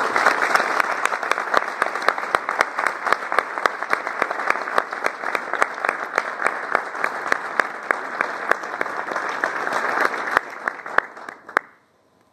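Audience applauding, a dense patter of many hands clapping that dies away about a second before the end.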